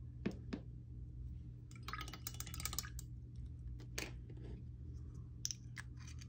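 Small J. Herbin ink bottles being handled: light clicks and clinks as a bottle is set down and its screw cap is turned, with a quick run of small ticks partway through, over a low steady hum.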